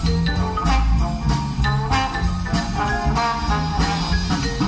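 Music played over an aftermarket Audison fully digital car audio system in a Mercedes-AMG A45's cabin: an instrumental passage with a steady beat and a bass line.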